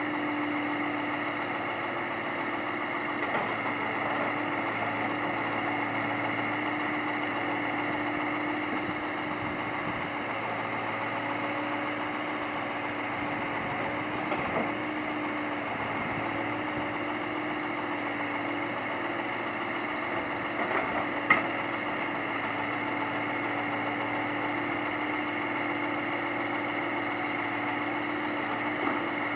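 Scania timber truck's engine running steadily, driving its loader crane, with a steady hum throughout. A few knocks of logs being handled, the sharpest about two-thirds of the way through.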